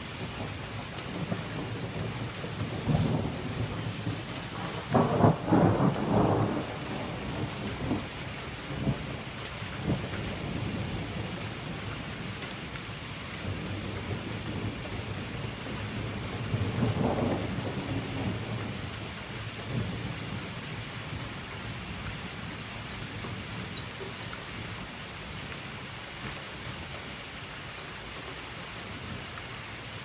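Thunderstorm: steady rain falling throughout, with thunder rumbling. The loudest peal comes about five seconds in, and a second, lesser rumble a little past halfway.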